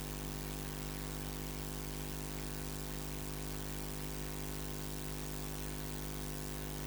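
Steady electrical mains hum with a buzz of overtones and an even hiss, with no voice or music: the audio feed has failed and carries only line noise.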